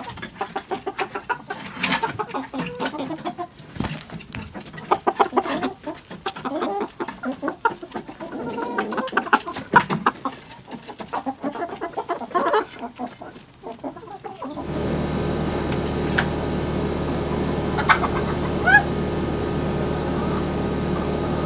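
A flock of backyard hens, silkies among them, clucking in many short overlapping calls. About two thirds of the way through, the sound cuts to a steady hum with a few faint clicks and short chirps.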